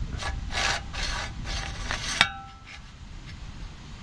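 Briggs & Stratton 550 pull-start recoil: the cord rewinds onto the spring-loaded pulley with scraping and rattling, then a sharp metallic clank about two seconds in as the steel housing rings briefly. Quieter handling noise follows.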